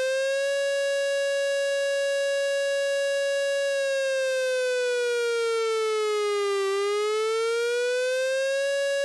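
Civil defense air-raid siren sounding the air-raid warning. It holds one steady wailing pitch, then about four seconds in slowly sinks for some three seconds and rises back over the next two.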